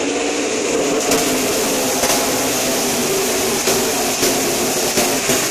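A pack of NASCAR Camping World Truck Series trucks racing past on the dirt oval, their many V8 engines running at once in a loud, dense drone.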